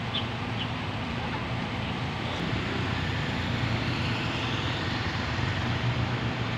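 A motorcycle passing along the road, getting a little louder around the middle of the stretch, over a steady street rumble.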